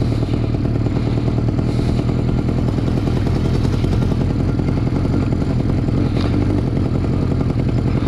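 Carbureted 400 cc four-cylinder motorcycle engine lugging at low revs in second gear with the throttle closed, pulling the bike along with an even, steady note. The engine is jerking a bit at such low revs.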